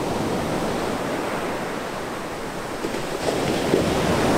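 Ocean surf breaking and washing up a sandy beach in a steady rush, swelling a little near the end.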